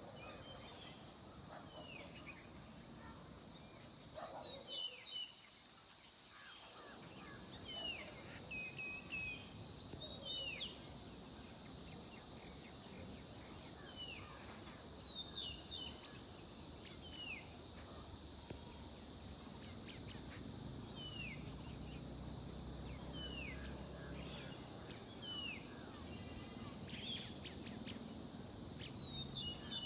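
A steady, high, pulsing drone of insects, with birds repeatedly giving short, falling chirps over it.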